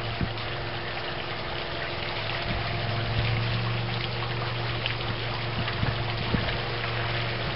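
Boat motor idling: a steady low hum with an even hiss over it.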